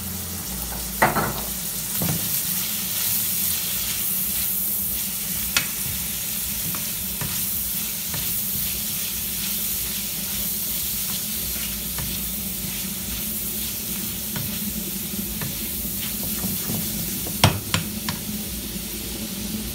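Chicken livers sizzling in olive oil in a frying pan while being stirred with a silicone spatula; a steady frying hiss with a few sharp clicks, the loudest cluster near the end.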